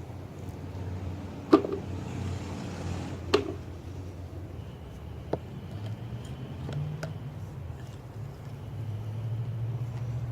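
Steady low rumble of road traffic, with three sharp knocks from digging in the bed; the first, about a second and a half in, is the loudest.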